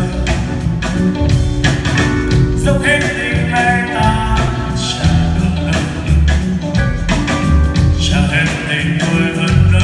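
Live band playing a pop song with drums, keyboards and guitar, a male voice singing over it, heard from the audience in a concert hall.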